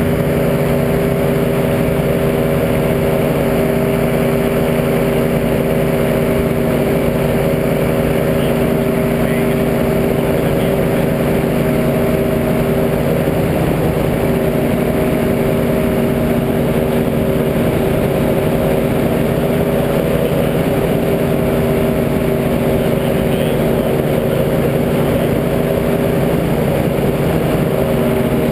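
Tandem paramotor trike's engine and propeller running in flight, a loud steady drone that holds one pitch throughout: the motor at constant cruise throttle.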